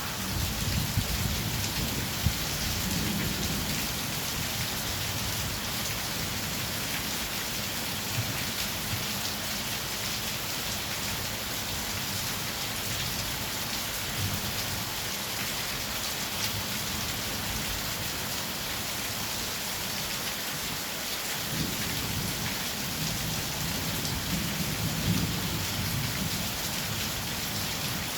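Heavy rain falling steadily, with low rumbles of thunder in the first few seconds and again from about three-quarters of the way in.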